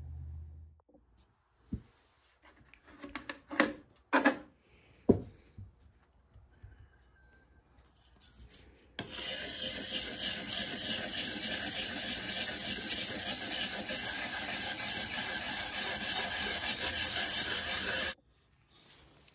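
A hand-held sharpening stone rubbed rapidly back and forth along the steel blade of an old P.S. & W. Co. drawknife, honing the edge: a steady rasping scrape that starts about halfway through and stops abruptly near the end. Before it, a few light knocks as the tool is handled.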